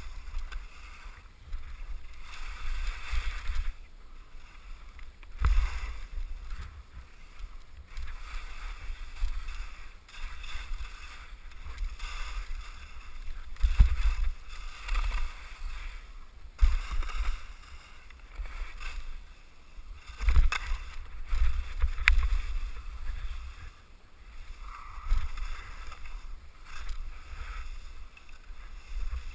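Skis hissing and scraping over packed snow through a series of turns, with wind buffeting the camera microphone in gusts as the skier descends.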